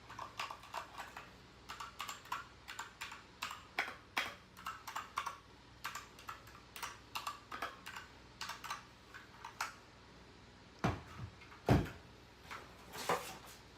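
Keys being typed on a DIERYA DK68SE mechanical keyboard: a quick, irregular run of key clicks, with two heavier thumps about eleven seconds in.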